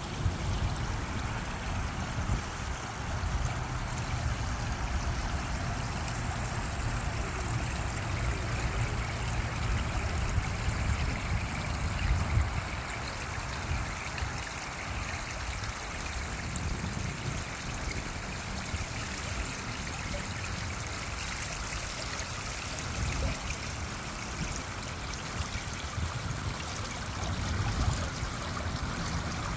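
Fountain pool water running and trickling steadily.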